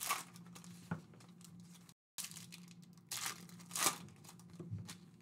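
Trading-card pack wrappers being torn open and crinkled by hand, in a few sharp rips with rustling between; the biggest tear comes about three to four seconds in.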